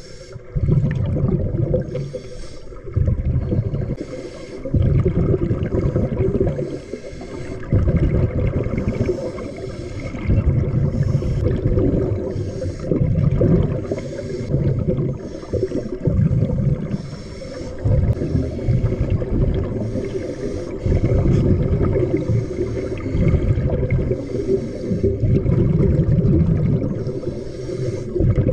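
Muffled underwater noise through a submerged camera: water rushing and sloshing past in a regular pulse that swells about every second and a half to two seconds, with a faint hiss on each swell.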